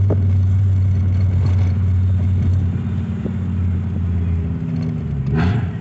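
Fiat Marea Weekend 2.4 20-valve inline five-cylinder engine and exhaust heard from inside the cabin while driving: a steady low drone that eases slightly. About five and a half seconds in, a short rushing sound comes with a brief dip and recovery in engine pitch.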